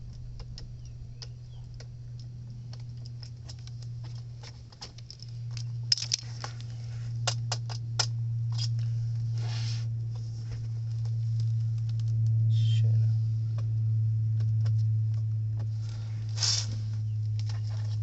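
Scattered sharp clicks and short scrapes of hand tools handling copper air-conditioner pipe during flaring work, growing busier partway through, over a steady low hum.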